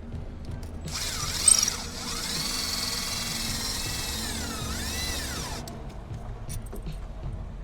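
Cordless power tool whirring for about five seconds, its motor speed dipping and rising with the trigger, while spinning a fastener on the reefer unit's starter.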